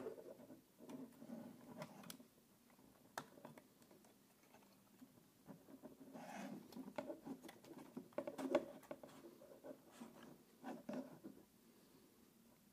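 Faint plastic clicks and rustling as hands handle a DJI Mini 2 drone, opening its battery compartment cover and sliding the battery out. There are scattered small ticks, with the loudest cluster a little past eight seconds in.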